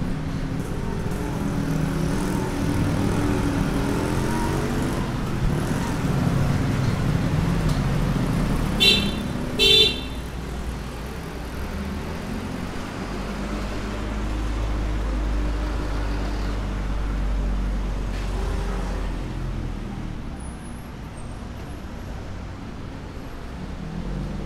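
Busy street traffic: engines running and vehicles passing, with two short horn beeps about nine and ten seconds in. Near the middle a heavier vehicle's low rumble grows for several seconds.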